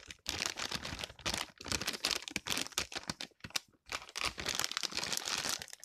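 Packet of muffin mix crinkling as it is tipped and squeezed to empty the dry mix into a bowl, in irregular bursts with a brief pause a little past halfway.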